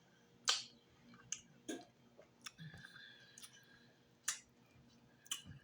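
Close-up mouth sounds of eating: soft wet smacks and clicks of chewing, about seven scattered at irregular intervals.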